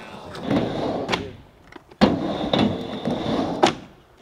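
Skateboard wheels rolling up and down a vert ramp, the rumble swelling and fading with each pass, with sharp clacks of the board. The loudest clack comes a little after halfway.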